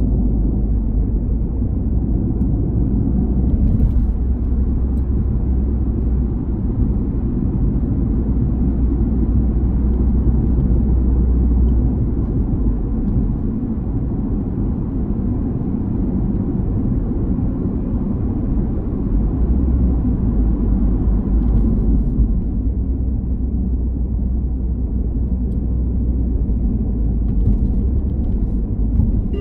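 Car driving on a road: a steady low rumble of tyres and engine.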